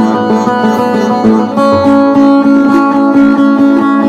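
Bağlama (saz), the Turkish long-necked lute, played solo with quick picking strokes: an instrumental run of a Turkish folk melody between sung verses, the strings ringing on.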